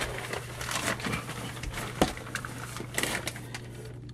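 Rustling and crackling handling noise as a hand-held camera is moved around floor framing in a tight space, with scattered clicks and one sharp knock about two seconds in, over a steady low hum.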